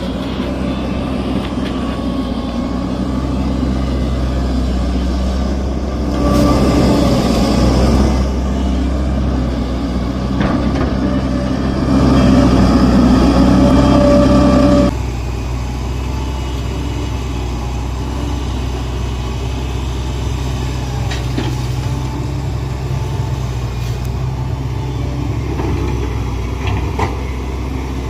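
Hitachi excavator's diesel engine running steadily. It grows louder twice, briefly about six seconds in and again for a few seconds around the middle, and the second time it drops back suddenly.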